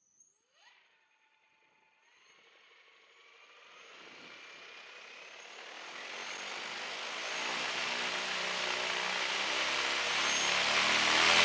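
Large homemade brushless outrunner motor spinning up a wooden two-blade propeller on a thrust stand. A short rising electric whine comes as it starts, then the propeller's rushing noise grows steadily louder as the throttle is opened.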